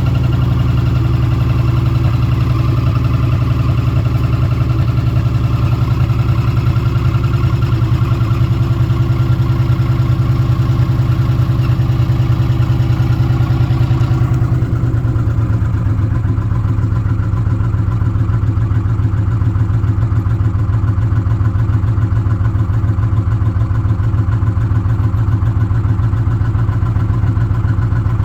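2006 Ford F-150's 5.4-litre three-valve V8 running steadily, freshly started, with a noise taken for valve-train noise around cylinders 2 and 3. The engine logs code P0016, a crank/cam timing correlation fault on bank 1. About fourteen seconds in, its higher-pitched sound drops away and the running turns duller.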